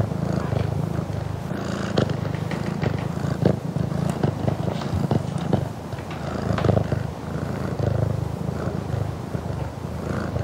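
Burmese cat purring, close-miked: a continuous low rumble that swells and eases every couple of seconds, with a few brief clicks over it.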